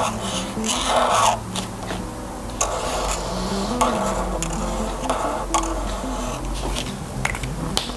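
Black marker pen scratching across paper in short strokes as a leaf outline is drawn, over soft instrumental background music.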